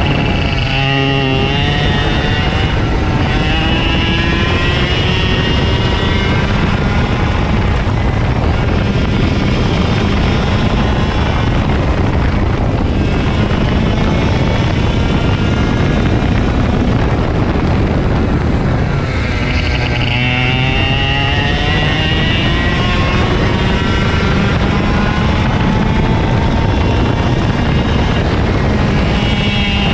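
Single-cylinder two-stroke engine of an IAME KA100 rental kart heard onboard at racing speed. The revs climb steadily for long stretches and drop sharply twice, about a second in and again about 19 seconds in, as the kart slows for corners and then pulls out of them.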